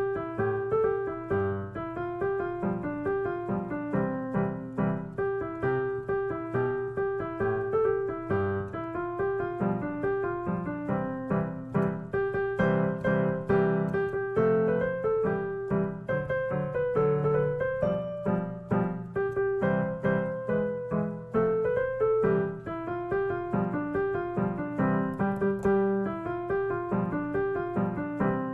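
Piano music, with one note repeated steadily under a moving melody.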